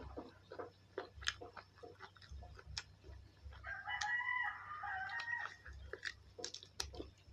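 A rooster crowing once, a drawn-out call of about a second and a half near the middle, over close, repeated crunchy chewing and mouth clicks from eating.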